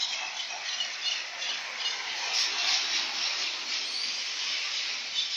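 Steady hiss of heavy rain.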